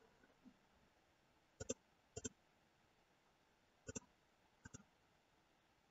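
Computer mouse clicking four times, each a quick press-and-release pair of clicks, over near silence.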